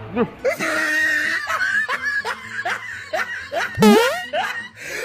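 Snickering laughter: a run of short falling "heh" pulses, about three a second, then a louder laugh about four seconds in.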